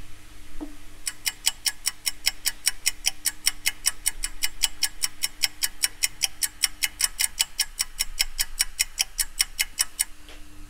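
Rapid, perfectly even clock-like ticking, about six ticks a second. It starts about a second in and stops shortly before the end.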